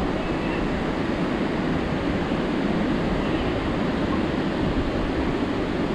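Steady rush of ocean surf breaking and washing up a sandy beach, mixed with wind.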